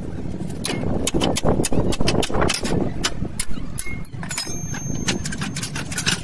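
Irregular metallic clinks and knocks of a steel suspension control arm and hand tools being handled, over a low rumble.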